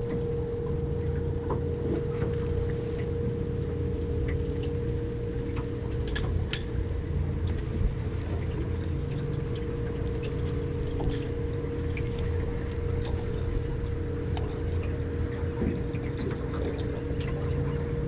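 Water splashing and trickling around a boat, over a steady motor hum that holds one constant pitch throughout.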